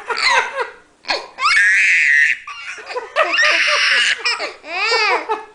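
A baby laughing hard in repeated bursts, set off by two long, drawn-out adult sneezes about two seconds apart.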